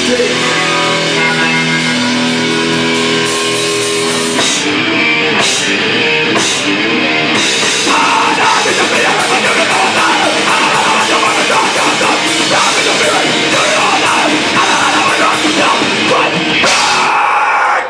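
A hardcore punk band playing live: distorted electric guitars, bass and drums with vocals, loud throughout. The first few seconds are held chords, the rest is fast, dense playing, and the song stops abruptly at the very end.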